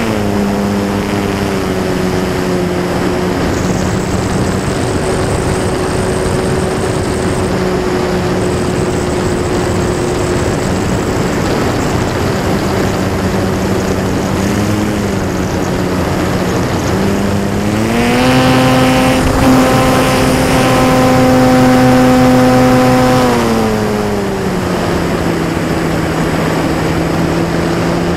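Electric motor and propeller of a Techone Air Titan RC plane, heard from its onboard camera: a steady hum over rushing air. The throttle is eased back at the start, opened up for about five seconds some two-thirds of the way in, then eased back again.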